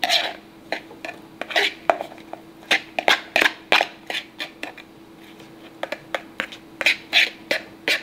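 A metal utensil scraping and clinking against a ceramic bowl as a chopped-vegetable topping is scooped out, in irregular taps with a short lull about halfway. A steady low hum runs underneath.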